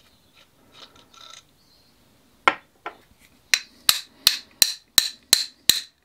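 Metal-on-metal tapping: a spanner striking the back of a Graco Cleanshot airless-sprayer shut-off valve held in locking pliers, to knock the needle out through the front. One knock comes about two and a half seconds in, then a quick run of even, ringing taps about three a second.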